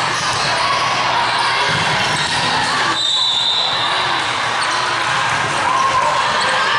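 Busy indoor volleyball gym: a steady echoing din of balls being struck and bouncing, sneakers squeaking on the court floor, and people talking.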